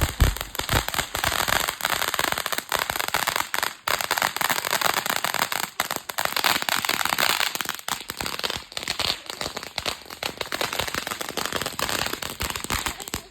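Ground firework crackling continuously: a dense stream of rapid small pops over a hiss, dipping briefly a couple of times before stopping abruptly at the end as the firework burns out.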